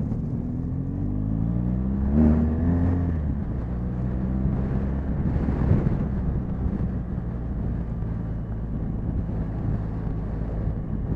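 BMW motorcycle engine under way, its pitch climbing over the first two seconds, then dropping about three seconds in and running steadily, with wind rushing over the microphone.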